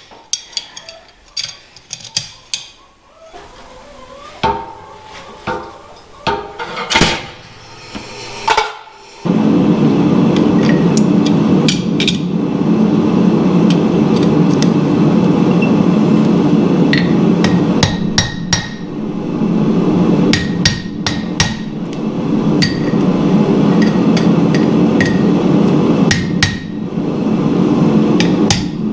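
A hammer striking steel, likely peening rivets on blacksmith tongs, in scattered blows and then in short groups of strikes. From about nine seconds in, a loud steady roar runs under the blows.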